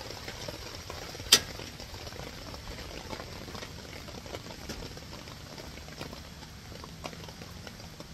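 Water heating to a boil on a camp cook stove: a steady bubbling hiss with scattered faint ticks, and one sharp tap about a second in.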